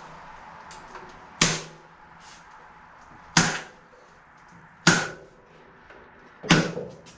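Four sharp strikes, about one every one and a half to two seconds, each with a short ring, as material stretched over a potato curing-rack frame is fastened down.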